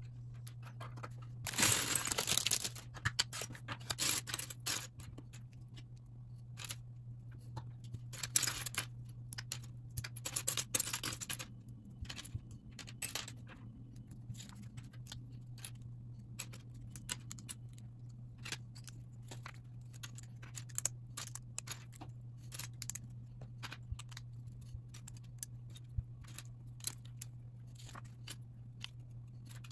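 Plastic LEGO bricks clicking and rattling as they are handled and pressed together, in many short irregular clicks. Louder rustling and clattering of loose pieces comes about two seconds in and again around eight to eleven seconds, with a steady low hum underneath.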